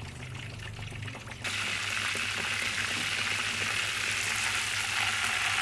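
Pork chop deep-frying in hot oil in a wok: bubbling oil that, about a second and a half in, jumps suddenly to a loud, steady sizzle.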